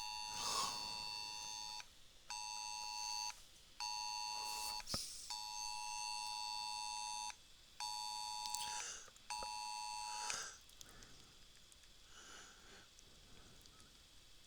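Mobile phone's Wireless Emergency Alert attention tone for a Presidential Alert: two tones at once, near 853 and 960 Hz. They sound one long and two short, that pattern twice, and stop about ten seconds in. It is the nationwide emergency alert test arriving on the phone.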